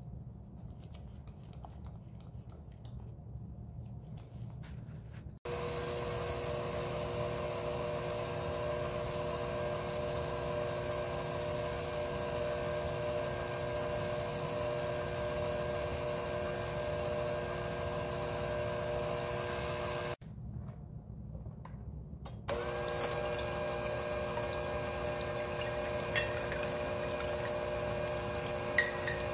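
A spatula scrapes softly through batter in a glass bowl. About five seconds in, an electric hand mixer with wire beaters starts and runs at a steady pitch through the yolk batter. It stops around twenty seconds, then starts again beating egg whites, with a couple of light clicks near the end.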